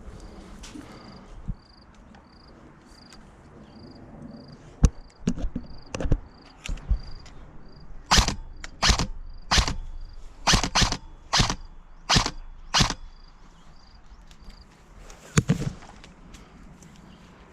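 Crickets chirping steadily, about three short chirps a second, with a run of about eight sharp cracks in quick succession between eight and thirteen seconds in, and single cracks near five and fifteen seconds in.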